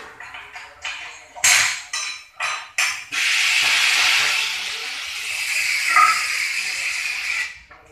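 Metal clinks and knocks from the rim and tools of a tyre curing mould, then a steady, loud hiss of escaping pressure for about four and a half seconds that cuts off suddenly.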